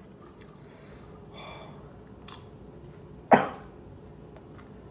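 A man coughs once, sharply, about three seconds in, his throat burning from Carolina Reaper-spiced popcorn.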